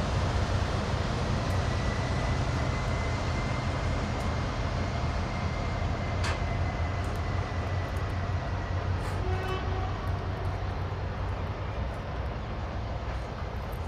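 Diesel locomotive engine running with a steady low drone, easing slightly in level toward the end, with a single click about six seconds in.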